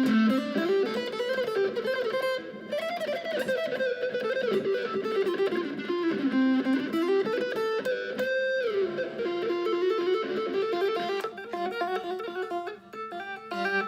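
Fender Stratocaster electric guitar playing a lead melody, its notes gliding up and down with string bends and slides.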